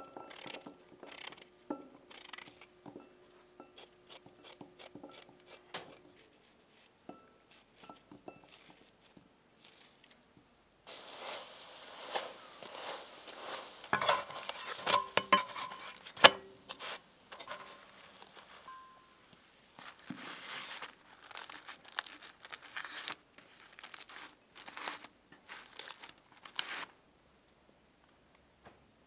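A crisp, flaky paratha being crushed and scrunched by hand to open its layers, a crackling crunch starting about a third of the way in, with two sharp slaps near the middle that are the loudest sounds. Before that, light clicks of pear pieces dropping into a ceramic bowl.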